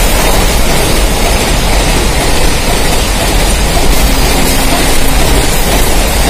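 Loaded container flat wagons of a freight train rushing past at speed: a loud, steady rumble and rattle of steel wheels on the rails.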